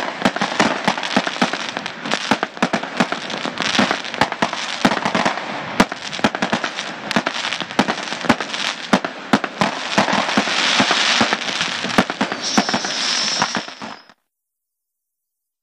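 Dense, loud crackling of many sharp irregular pops over a steady hiss, with a brief high whistle near the end. It cuts off abruptly.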